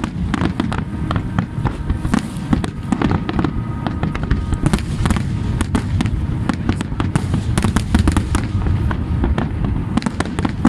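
Fireworks display: aerial shells bursting in a rapid, unbroken barrage of bangs and crackles over a constant low rumble.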